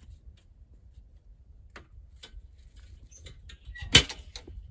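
Scattered small clicks and knocks of hands working at the snowed-in Cushman Truckster, its engine not yet running, with a short squeak and then one sharp, loud clack about four seconds in.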